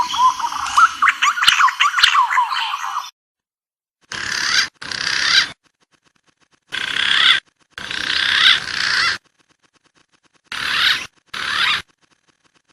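Recorded wild pigeon and dove calls played as a bird lure: a dense run of quick overlapping calls for about three seconds, then after a pause three pairs of short wavering whistled calls, each starting and stopping abruptly with silences between.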